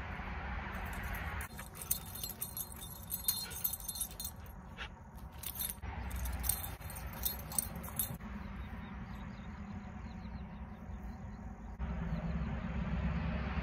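Metal tags on a dog's collar jingling in quick, irregular clinks as the dog jumps and lunges, starting about a second and a half in and dying away about eight seconds in, over steady low background noise.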